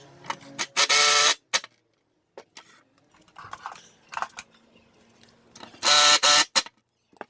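Makita cordless driver running in two short bursts, about a second in and again near six seconds, each about half a second long, driving screws into a wooden block through a bracket on an aluminium extrusion. Light clicks and knocks come in between.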